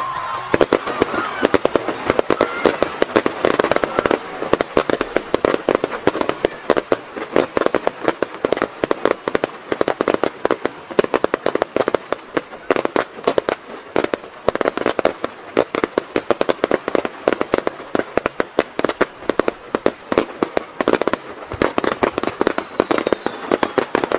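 An opening barrage of aerial fireworks: many shells bursting in quick succession, a dense, continuous run of bangs and crackles, several a second, starting about half a second in.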